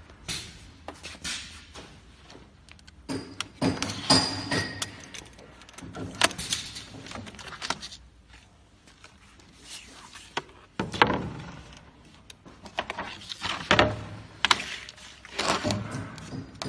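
Irregular knocks, clunks and rustling of hands-on work at a vacuum membrane press: plastic film being cut and peeled off the press table, and film-wrapped MDF door panels being lifted out.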